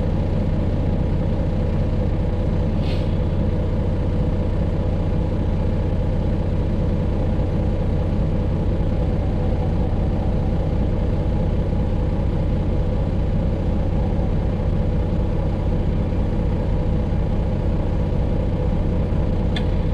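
Freightliner Classic XL semi truck's diesel engine running with a steady low drone, heard from inside the cab. A brief high-pitched sound comes about three seconds in.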